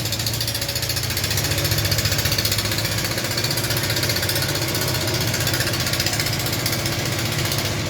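A machine running steadily: a low hum under a fast, even mechanical rattle.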